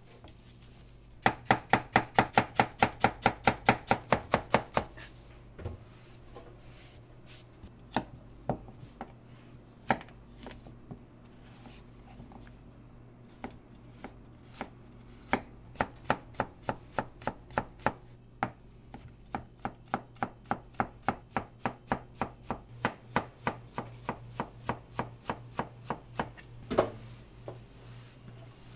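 Chef's knife chopping celery and carrots on a plastic cutting board: quick runs of sharp knife strikes, at times about seven a second, broken by short pauses.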